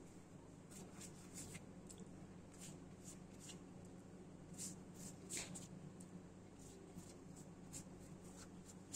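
Faint, soft swishes and rustles of thin phyllo dough sheets being handled in a pan and brushed with a silicone pastry brush, over a low steady hum.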